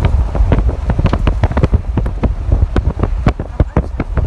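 Wind buffeting the microphone in a heavy low rumble, with a rapid, irregular run of sharp knocks and rattles.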